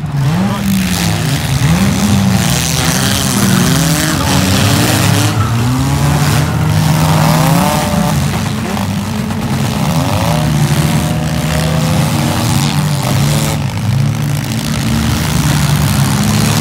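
Engines of several four-cylinder demolition derby cars revving up and down, their pitch rising and falling again and again as they push against one another.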